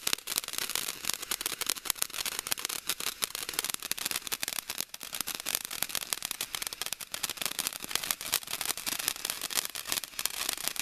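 Ground fountain firework spraying sparks: a steady hiss thick with rapid crackling pops.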